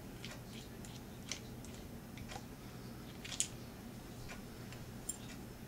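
Faint, irregular light clicks and taps of small metal parts and a tool being handled as the one screw holding a 3D printer extruder plate to its stepper motor is loosened, with a sharper click about three and a half seconds in, over a steady low hum.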